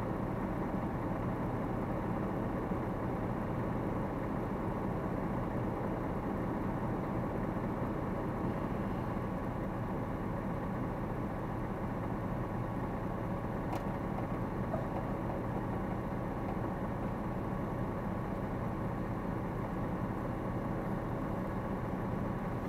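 Diesel lorry engine idling steadily, heard from inside the cab.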